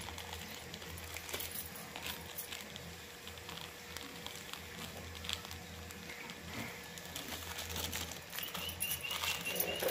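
Soft rustling and small clicks of a plastic packet being handled and squeezed as coloured rangoli powder is emptied onto a plate. A short run of high chirps comes near the end.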